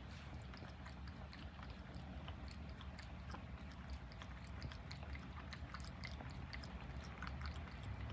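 American Shorthair cat lapping water: a faint, steady run of small wet clicks from its tongue and mouth.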